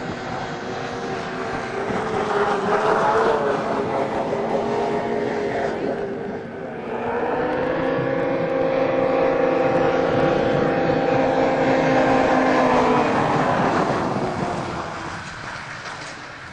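Snowmobile engines running at high revs with a steady whine while skimming across open water; the sound dips briefly about six seconds in, swells again, then fades near the end.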